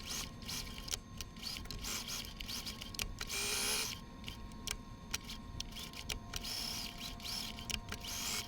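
Domestic sewing machine stitching a seam: a steady motor whine with a rapid run of needle clicks, louder for a moment about three and a half seconds in.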